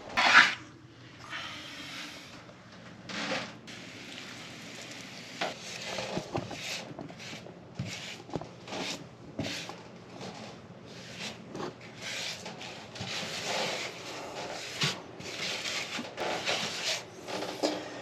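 Grout being rubbed and scraped across shower wall tile in repeated uneven strokes, scrubbing the excess grout off the tile faces.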